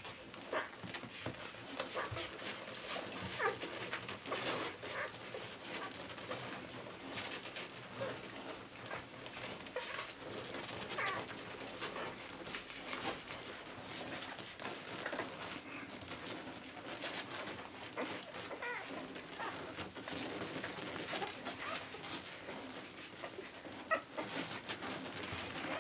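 Newborn golden retriever puppies suckling from their mother: a steady run of small wet smacks and rustles, with brief high squeaks and whimpers now and then.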